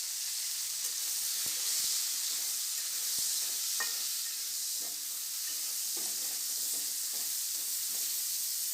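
Cauliflower florets frying in hot white cooking oil in a kadai: a steady sizzle, with a few light clicks.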